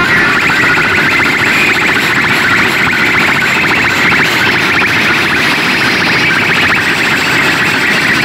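Giant DJ speaker stacks blasting at full volume, overloading the recording into a loud, steady, harsh buzzing din with a fast pulsing texture.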